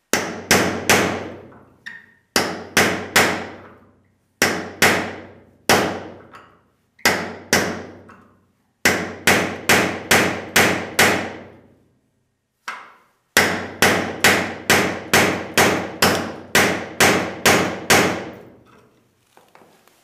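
Steel hammer blows with a metallic ring, striking a hinge pin tool to drive a stuck door hinge pin. The blows come in quick groups of about three with short pauses, then longer runs of seven and ten near the end.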